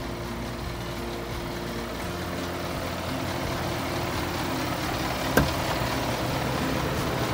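Hino Ranger truck's diesel engine idling steadily, growing louder as the microphone moves along the cab. About five seconds in there is one sharp click as the cab door latch is opened.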